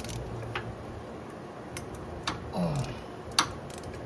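A few separate sharp metallic clicks and clinks of hand tools on a starter motor's mounting bolt as it is loosened, the loudest near the end.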